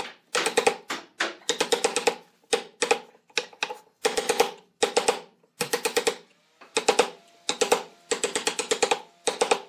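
Steel chisel being driven into a pine post by rapid hammer blows, coming in quick bursts of about half a dozen strikes with short pauses between, each strike with a slight ring.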